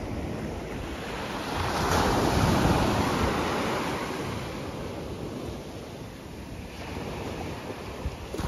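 Small waves breaking and washing up onto a sandy beach, one wave swelling about two seconds in and then ebbing away.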